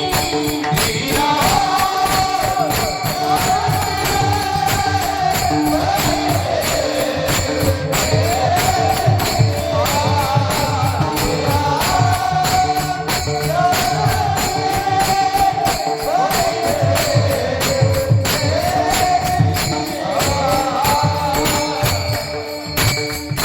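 Kirtan devotional music: a wavering melody over a steady held drone, with metallic jingling percussion and a hand drum keeping a steady beat.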